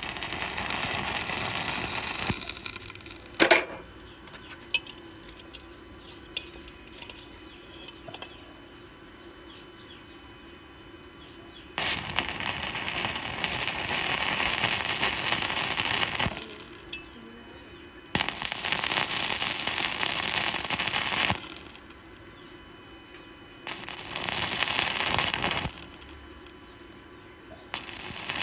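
Stick welding arc crackling in five short runs of about two to four seconds each, with pauses between. About three and a half seconds in there is one sharp knock, followed by a few lighter clicks.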